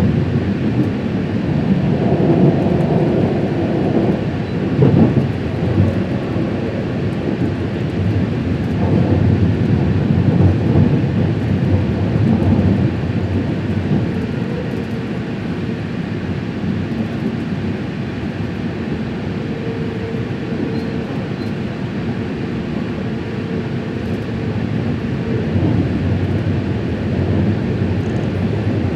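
A train running past, making a steady, continuous rumble that is a little quieter in the second half.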